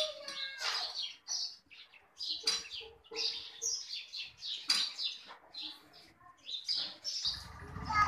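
House sparrows chirping: short, sharp chirps one after another, some in quick runs. A low rumble starts near the end.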